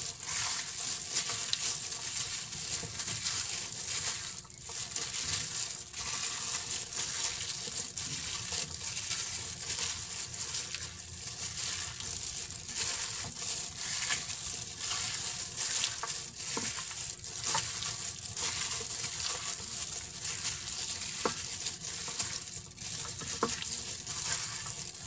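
Raw chicken wings being mixed by hand with seasoning in a glass baking dish, through a thin disposable plastic glove: continuous wet squishing of the meat and crinkling of the glove, over a steady high hiss.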